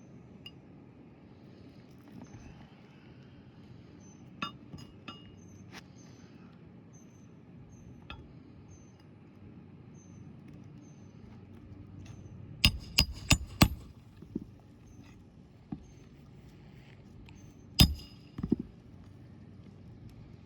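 Hammer striking metal on an asphalt shingle roof, likely driving roofing nails to fasten a replacement shingle: a few light taps, then a quick run of four sharp strikes about two-thirds of the way in, and one more hard strike a few seconds later.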